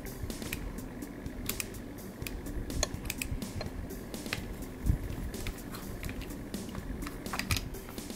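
Light, irregular clicks and ticks of a screwdriver and small metal parts on an Andis Master hair clipper's metal housing as a screw is turned, with one louder knock about five seconds in.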